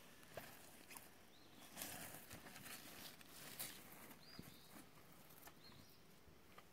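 Near silence outdoors: faint rustling and a few light clicks, with three faint, short, high chirps.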